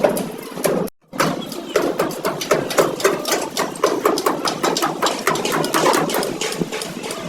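Rapid, irregular knocking, several strikes a second, broken by a brief gap about a second in.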